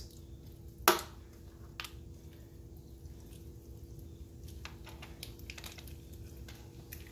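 Raw lobster tail shell being worked open by hand as the meat is pulled out: a sharp crack about a second in, a smaller one shortly after, then faint scattered clicks and rustles of shell, over a faint steady hum.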